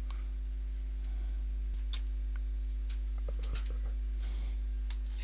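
A steady low electrical hum with a few faint, scattered clicks and ticks.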